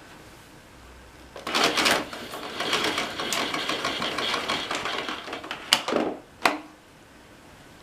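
Hard plastic vacuum-cleaner parts being handled: about four seconds of rattling and scraping, then two sharp clicks.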